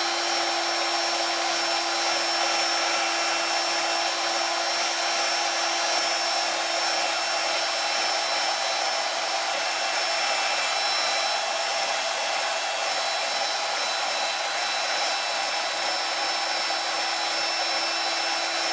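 Small electric motor running steadily, a constant hum with a faint high whine and even hiss that does not change.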